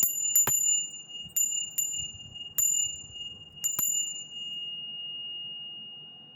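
Metal chime struck about eight times at uneven intervals over the first four seconds, each strike ringing high. One ringing tone lingers and slowly fades after the last strike.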